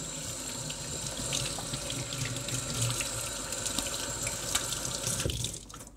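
Kitchen tap running water into the sink as hands are rinsed of chicken marinade, with a few small splashes. The tap shuts off about five seconds in.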